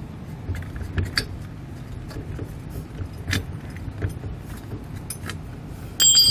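Steel tow bar being worked out of a hitch receiver tube: scattered metallic clinks and knocks with a jangling rattle of its hardware, then a loud ringing metal clank near the end.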